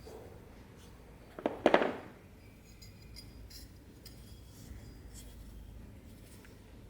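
A knife cutting: a couple of sharp clicks, then a short, loud cutting crunch about a second and a half in, followed by faint light ticks and clinks.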